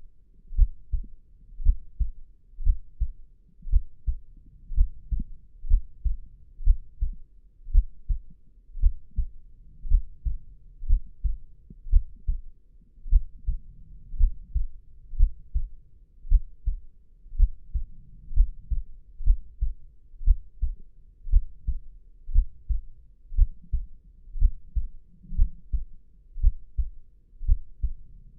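A human heartbeat, a slow steady lub-dub of paired low thumps at about one beat a second.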